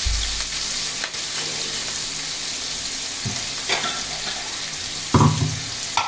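Chopped onions sizzling steadily in hot oil in an aluminium kadai as they start to sauté, with a brief louder noise about five seconds in.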